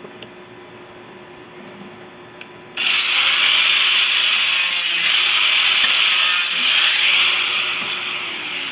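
Power tool switched on, its whine rising quickly as it spins up, running with a loud harsh hiss for about four seconds, then winding down with a falling whine.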